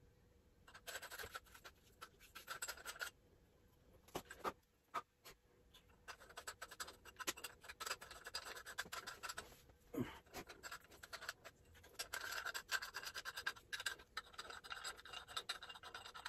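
Faint scratching and rubbing of metal and plastic faucet parts being handled and threaded together, in several stretches of a few seconds with scattered small clicks and a light knock about ten seconds in.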